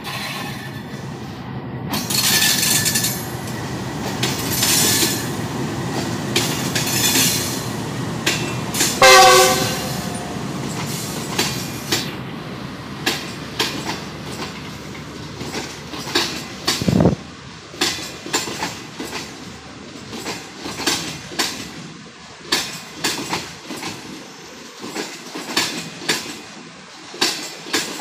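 Pakistan Railways Green Line passenger express running through the station: the diesel locomotive rumbles past and sounds its horn, loudest about nine seconds in, then the coaches' wheels clatter over the rail joints in a quick run of clicks.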